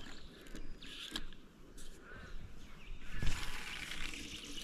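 Spinning rod and reel being handled: scattered small clicks and rattles from the reel, with one louder knock about three seconds in.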